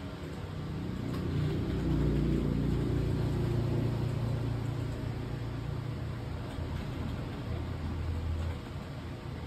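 A low rumble that swells over the first two seconds, stays strong for a few seconds, then fades and cuts off about eight and a half seconds in.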